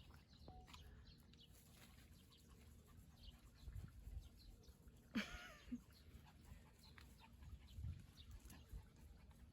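Mostly quiet, with faint scattered ticks and a low rumble, and one short pitched animal call about five seconds in.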